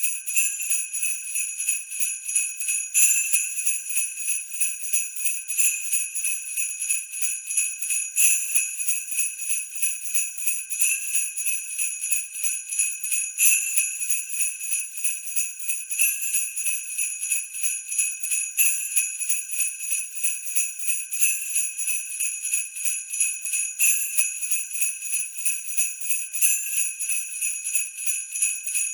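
Sleigh bells jingling in a steady rhythm of quick shakes, with a stronger accent about every two and a half seconds.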